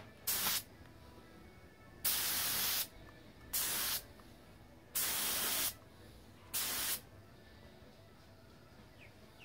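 Compressed-air spray gun spraying high-fill primer in five short bursts of hiss, each about half a second to a second long, with short pauses between them.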